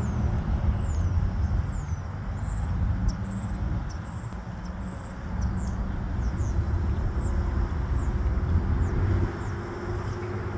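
Road traffic passing close by, a steady low rumble, with a bird chirping over it: short high falling chirps about once a second.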